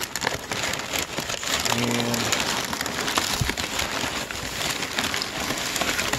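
Crumpled brown kraft packing paper rustling and crinkling steadily as hands push it aside and lift out a padded plastic mailer, with a brief low hum about two seconds in.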